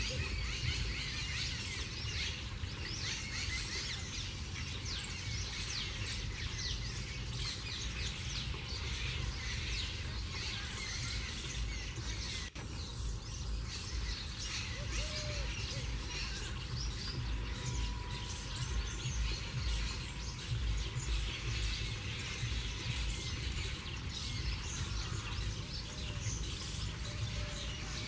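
Birds chirping outdoors: short, high chirps repeated about twice a second over a steady low background noise.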